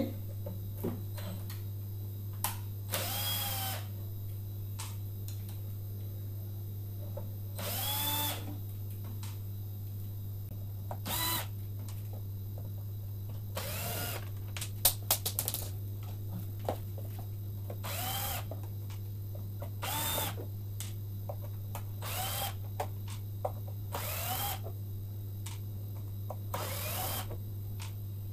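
Cordless electric screwdriver whirring in short runs, about nine in all, each spinning up and winding down in pitch, as it backs the screws out of the underside battery cover of an electric scooter's deck. A few sharp clicks come near the middle.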